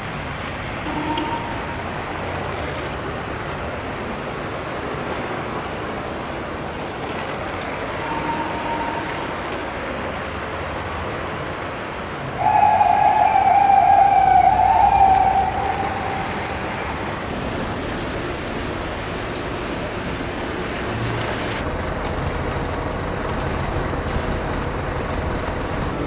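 An emergency vehicle's siren gives one loud, steady tone lasting about three seconds, beginning about halfway through, over a continuous wash of street and traffic noise in the snow. A couple of much shorter, fainter tones sound earlier.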